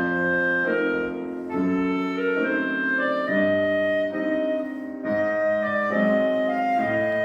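Live classical music: a wind instrument plays a melody of held notes, with piano accompaniment.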